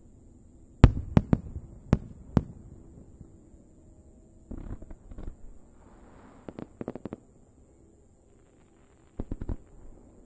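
Fireworks bursting: a quick run of sharp bangs about a second in, the first the loudest, then clusters of rapid crackling pops around the middle and again near the end.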